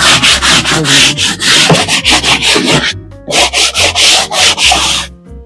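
Stiff-bristled brush scrubbing a wet surface in quick back-and-forth strokes, about four a second, with a short pause near the middle, working loose yellow calima dust turned to mud.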